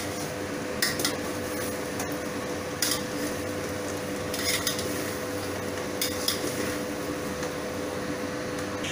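Metal spoon stirring and mixing cooked rice with masala in an aluminium pot, scraping the rice around with a few sharp clinks as it knocks against the pot.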